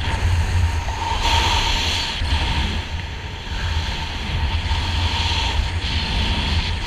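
Wind rushing over the camera microphone during flight under an open parachute canopy: a steady low rumble with hiss, stronger about a second in and easing slightly about three seconds in.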